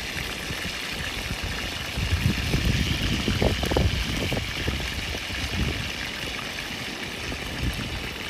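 River water running steadily, with a stretch of low rumble in the middle.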